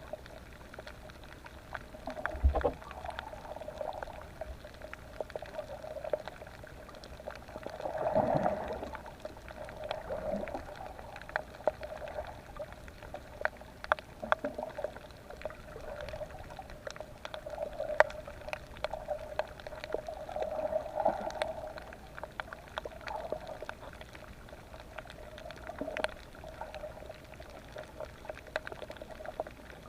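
Underwater sound on a reef, heard through the camera underwater: a steady muffled hum that swells now and then, with scattered sharp clicks and crackles throughout.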